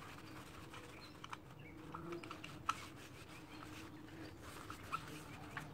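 Faint handling noises: a paper towel rubbing and rustling over a metal electronic throttle body held in gloved hands, with scattered small clicks and taps, the sharpest two a little over two seconds apart.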